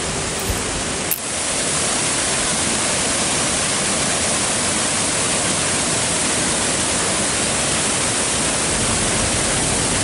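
Steady rushing hiss of a waterfall, falling water heard close to the microphone, with a brief click about a second in.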